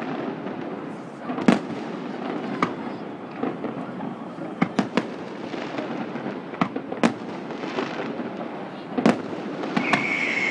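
Aerial fireworks exploding: irregular sharp bangs, several in quick succession around the middle, over a steady background hum. Near the end a high whine starts, sliding slowly down in pitch.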